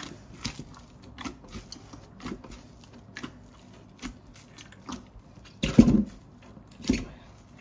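Risen yeast naan dough being kneaded and punched down by hand in a bowl: irregular soft squelching and slapping as the fist presses in, knocking the air out of the dough. Two louder thumps come near the end.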